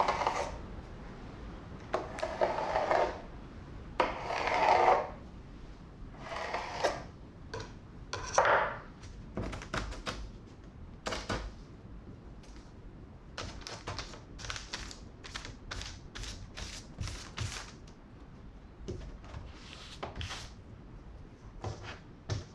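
Baking paper rustling and crinkling in several long swishes as it is handled. About nine seconds in, this gives way to a run of short, crisp clicks and crackles as trimmings of rolled cookie dough are picked off the paper.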